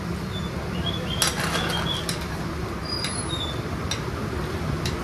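Mutton liver frying on a large iron tawa: a steady sizzle with a few sharp clinks of a metal spatula on the griddle, about a second in, again shortly after, and near the end.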